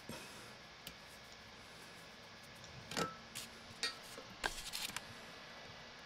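Light handling clicks and knocks as hands work the rubber coupling between an upflush toilet's outlet horn and its grinder pump: a few scattered ticks, one louder knock about three seconds in, and a quick cluster of clicks around four and a half seconds.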